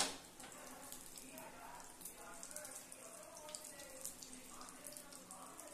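Omelette sizzling in hot oil on a flat iron pan, a steady fine crackle of small pops as the oil spatters around the egg. A single sharp knock right at the start is the loudest thing.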